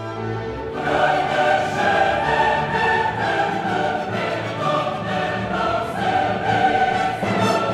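Background music: a choir singing over an orchestra, fading in over the first second.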